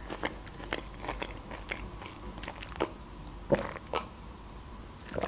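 Close-miked chewing of food by a person eating, with scattered short wet mouth clicks. A sip from a mug comes about three and a half to four seconds in.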